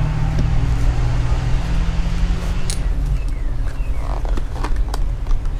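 Air-conditioning unit running with a steady low hum, one layer of it dropping out about three seconds in. A few light clicks and rustles in the second half, from a knife being taken out of its packaging and handled.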